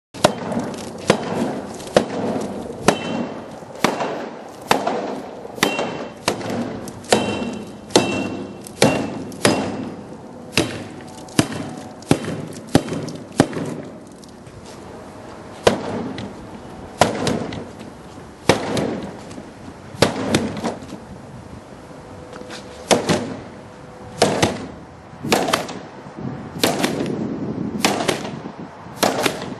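A freestanding plastic advertising board of Durapol being struck hard and repeatedly with a bat and other hand tools: sharp hollow whacks about once a second, some coming in quick pairs, as the board's resistance to vandalism is tested.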